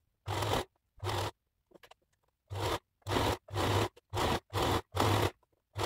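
Electric domestic sewing machine stitching in about nine short bursts of roughly half a second each, stopping and starting with brief pauses as the folded fabric edge is fed through.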